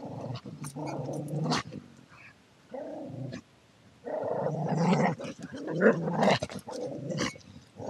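A dog making drawn-out, low-pitched vocal sounds in several bouts, with a short gap before a longer, louder bout from about four seconds in.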